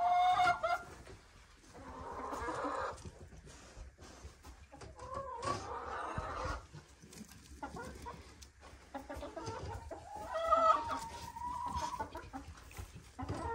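Chickens (hens) clucking and calling off and on, in four or five separate spells.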